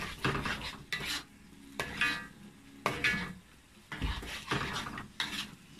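Spatula scraping and stirring thick chilli sambal around a metal wok, in strokes about once a second, some with a brief squeak of metal, over a low sizzle of frying.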